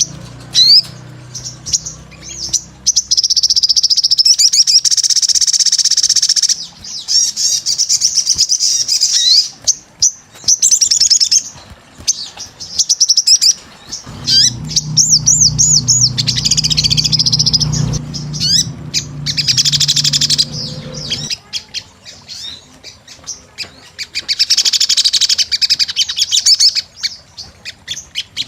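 Sogon (crimson sunbird) singing vigorously: bursts of fast, high-pitched chattering trills a few seconds long, separated by short pauses. A low hum runs underneath in the middle stretch.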